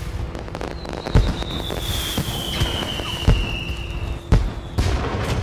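Fireworks bursting over a steady crackle, with five deep booms at uneven intervals. A long high whistle falls slowly in pitch through the middle.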